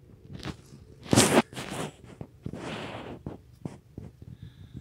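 A run of short rustling, scraping noises, the loudest about a second in, with two longer ones after it and a few light ticks.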